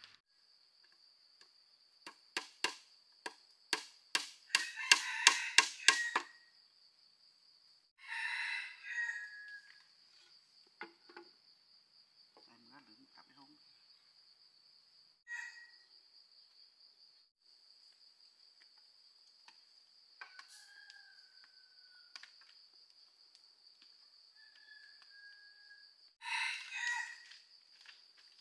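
A run of about a dozen sharp chopping strikes, coming closer together toward the end, over a steady high insect drone. A rooster crows twice, once a couple of seconds after the chopping and once near the end.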